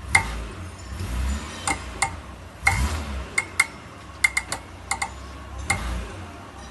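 Mitsubishi Pajero rear axle clunking as the transmission is put into reverse or drive: irregular sharp metallic clicks and knocks over a low rumble that swells a few times. This is the complaint the rear wheel hub bearings and rear differential bushes were replaced to cure.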